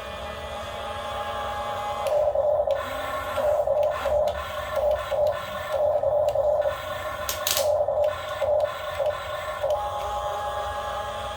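Small electric motors of a radio-controlled excavator whining, swelling in a run of short surges through the middle and settling back to a steady hum near the end.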